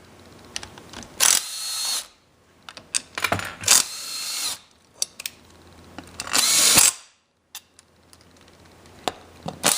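Power drill/driver spinning an 8mm socket to back out a clutch-cover bolt, in three short bursts of motor whine with small metallic clicks of the socket and bolt between them.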